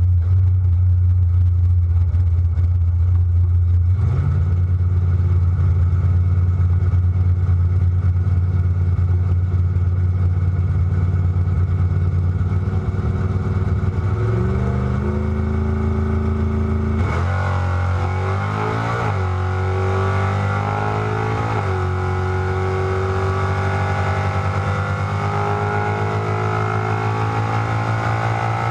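1973 Dodge Dart Sport drag car's engine heard from inside the cabin: idling steadily, brought up a little around the middle, then launched at full throttle a little past halfway, the revs climbing and dropping back at two upshifts before pulling in top gear to the end.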